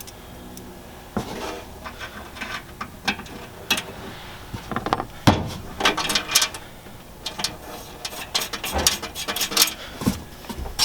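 Irregular clicking of a ratchet as the 1/4-20 screws that bolt the storage box down are run into the brackets, with some clatter of metal parts.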